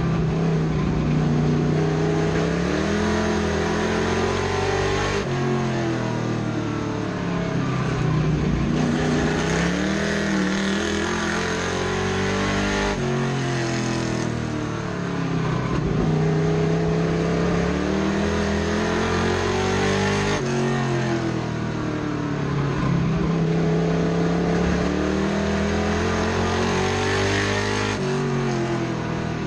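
Race truck's engine heard from inside the cockpit at racing speed, its pitch climbing as it accelerates and dropping off sharply each time it lifts, again and again through the laps, over steady wind and road noise.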